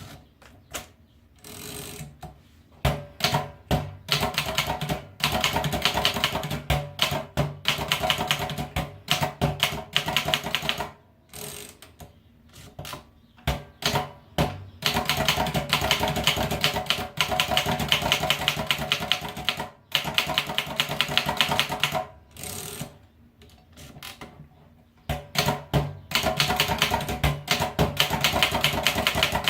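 Adler Favorit 2 manual typewriter being typed on: rapid runs of key and typebar strikes, broken by short pauses.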